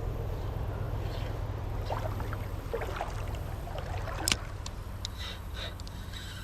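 Creek-side ambience: a steady low rumble with faint trickling water, scattered small knocks and one sharp click about four seconds in.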